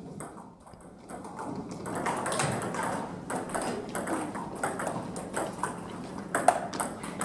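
Table tennis balls clicking off bats and tables: scattered taps from neighbouring tables, then a serve and rally at the near table in the last few seconds, with the loudest hit about six and a half seconds in.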